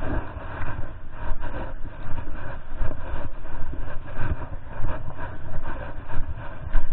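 Footsteps crunching through dry leaves and grass, with clothing rubbing against the body-worn camera's microphone: an uneven, rustling scuffle with small knocks throughout.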